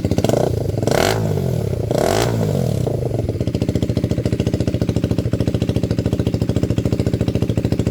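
2024 KTM Duke 390's single-cylinder engine running with the exhaust open, the stock muffler removed and no slip-on fitted. It is blipped twice in quick succession about one and two seconds in, then idles with a steady loud beat.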